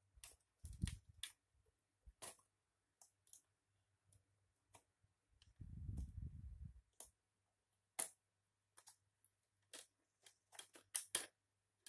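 Plastic screen bezel of an Acer Aspire laptop being pressed along its edges and snapped back onto the lid: a string of small, irregular plastic clicks. There is a low handling thump about a second in and a longer low rumble around the middle.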